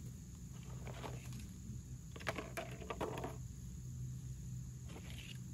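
Dry sticks and wood clattering and paper rustling as a campfire is laid by hand, in a few short bursts about one, two-and-a-half and five seconds in. A steady low hum runs underneath.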